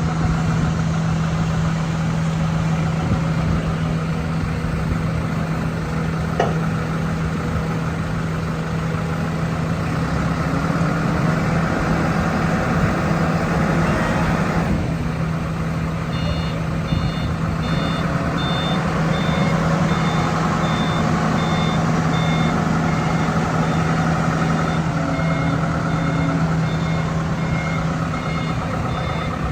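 A 7-tonne LiuGong forklift's engine runs steadily under load. From a little past halfway, its reversing alarm sounds a steady string of short high beeps.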